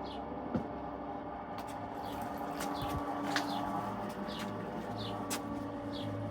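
Steady hum of a pool vacuum's motor, with a bird's short falling chirps repeating about once a second.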